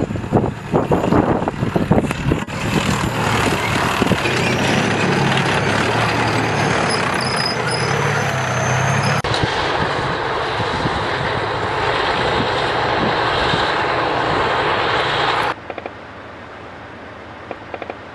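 Armoured tracked vehicle running hard, a steady loud engine-and-running-gear din, with irregular sharp cracks and knocks over the first couple of seconds. It breaks off abruptly about nine seconds in and again near the end, dropping to a much quieter rumble.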